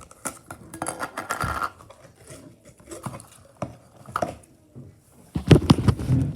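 A slime container being handled, closed and thrown away: scattered clicks and knocks, with the loudest clatter about five and a half seconds in.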